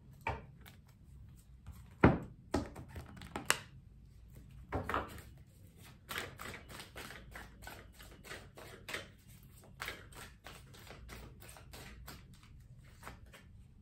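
A deck of oracle cards being shuffled and handled, with cards slipping and flicking against each other in irregular soft clicks and taps. The sharpest click comes about two seconds in.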